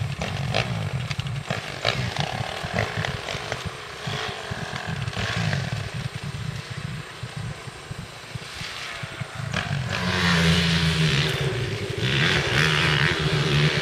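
Dirt bike engines working hard on a steep grassy hill climb, the engine note rising and falling under load. About ten seconds in a bike comes closer and gets louder.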